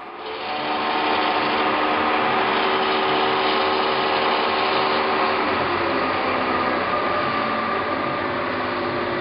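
Clausing 20-inch floor drill press starting up and running, its motor and variable-speed spindle drive giving a steady hum of several tones. The hum builds over about the first second, and its pitch shifts a little around the middle as the spindle-speed crank is turned.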